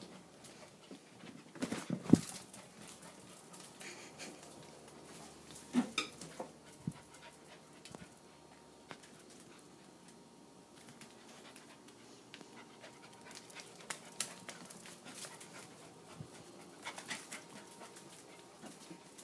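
Welsh Corgi puppy panting, with scattered short clicks and knocks, the loudest of them about two and six seconds in.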